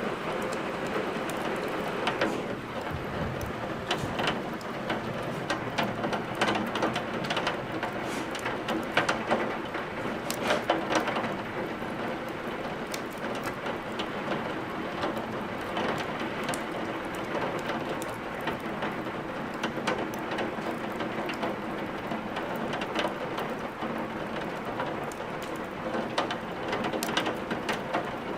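Steady rain falling, mixed with a wood fire crackling in a fireplace, sharp little pops of burning logs scattered through the hiss of the rain.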